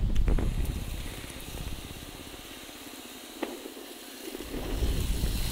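Pressure washer spraying water through an undercarriage cleaner bar rolled under the car: a steady hiss of spray that eases off in the middle and picks up again near the end, with one sharp click partway through.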